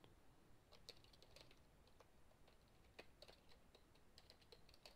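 Faint computer keyboard typing: an irregular run of soft key clicks as commands are entered.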